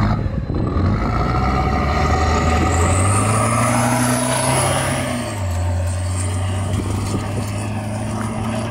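Engine of a lowered, home-built cab-over rat truck running steadily, its low tone stepping down a little about five seconds in, with a thin high whistle rising and then falling over it midway. The sound starts to fade out near the end.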